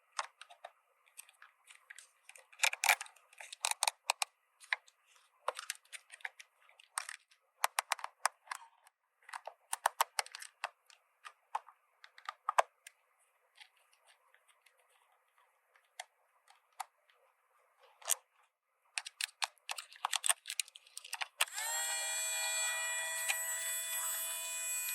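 Small plastic toy pieces and packaging being handled, giving irregular clicks, taps and crinkles. Near the end a steady buzzing tone with many overtones starts and holds for a few seconds.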